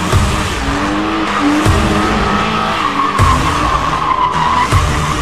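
BMW E36 drifting: tyres squealing steadily under a running engine, the squeal wavering in pitch, with low thumps about every second and a half underneath.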